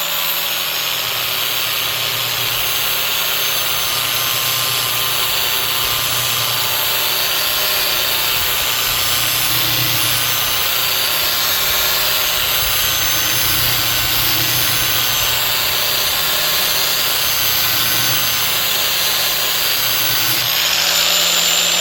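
Electric angle grinder with a flap disc grinding the edge of a steel mower blade: a steady motor whine with grinding hiss, held at an even pitch. Right at the end the grinder is switched off and its whine falls away as the disc spins down.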